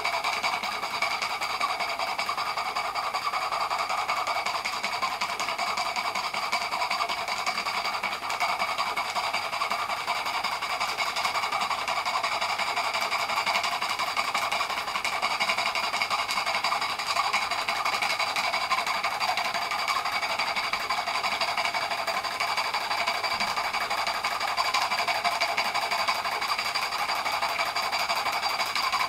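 Märklin 16051 compound twin-cylinder horizontal stationary steam engine running steadily on live steam: a fast, even mechanical chatter of the pistons and valve gear mixed with the hiss of exhausting steam.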